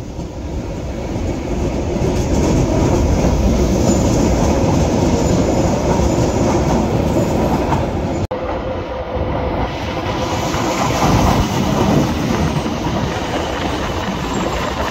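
Tyne & Wear Metrocar trains running close past a platform, their wheels loud on the rails and building up over the first two seconds. A brief break comes about eight seconds in, then a second Metrocar approaches and runs past.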